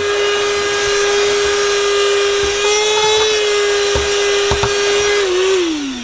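Cordless handheld vacuum cleaner running at a steady high motor whine, used without its nozzle, with a few faint ticks. About five seconds in it is switched off and the whine falls in pitch as the motor winds down.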